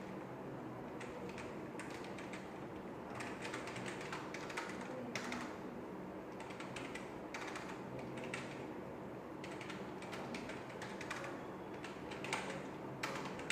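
Computer keyboard being typed on in short runs of keystrokes with brief pauses between, as a printf line of C code is entered. A faint steady hum sits underneath.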